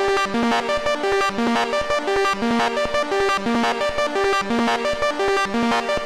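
Behringer MonoPoly analog synthesizer playing a fast, rhythmic arpeggio in poly mode, each note on a different oscillator, with cross-modulation and sync giving a metallic, shifting tone. A short phrase of alternating pitches repeats about once a second.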